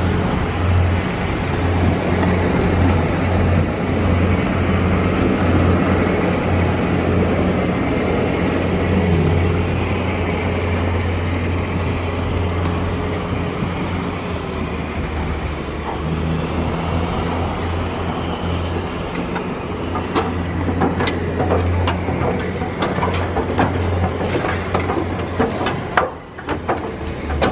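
Steady jet aircraft noise on the airport apron beside a parked Boeing 737-800: a low rumble under a faint, high, constant whine. In the second half a run of short sharp ticks joins it.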